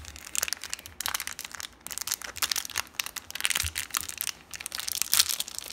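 Crinkly wrapper around a Shopkins mini toy being crumpled and peeled open by hand: a dense, irregular crackling and rustling.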